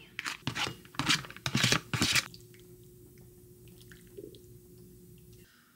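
Kitchen sounds of a meal being dished up: a quick run of clinks, knocks and wet liquid sounds for about two seconds, then a quiet stretch with a faint steady hum and a few small ticks.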